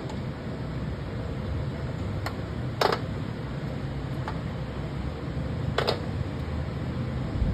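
Steady low fan hum, with two sharp clicks about three seconds apart and a couple of fainter ticks, as tools and parts are handled during valve replacement.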